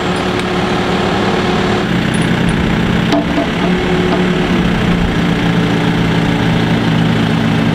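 Crane truck's engine running steadily while it hoists concrete mooring blocks on a chain, its note changing slightly about three seconds in, with a few faint clinks.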